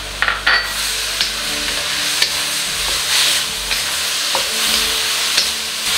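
Jerusalem artichoke strips, pork and red bell pepper sizzling in a hot wok as the last of the liquid cooks off, while a spatula stirs and tosses them. Several short scrapes and taps of the spatula against the wok sound over the steady sizzle.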